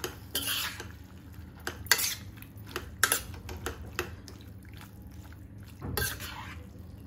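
Steel spoon stirring pasta in a dark kadai (wok-style pan): irregular clinks and scrapes of metal against the pan, some louder strokes among softer ones, over a low steady hum.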